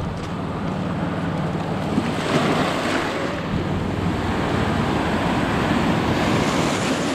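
Sea waves breaking and washing up a stony shore, swelling about two seconds in and again near the end, with wind buffeting the microphone.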